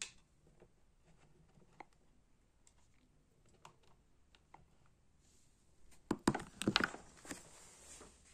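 Faint handling sounds: a sharp click at the start and a few light ticks. About six seconds in comes a short cluster of clicks and rustling, the loudest part.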